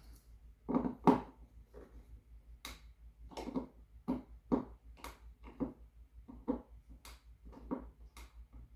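A series of light clicks and knocks, irregular at about one to two a second, with the loudest pair about a second in: a screwdriver and the electrical outlet being handled as the receptacle is screwed into its wall box.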